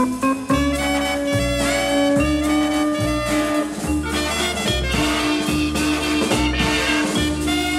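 Easy-listening big-band orchestra music from a 1960s vinyl LP: brass and saxophones holding long notes over a regular bass beat.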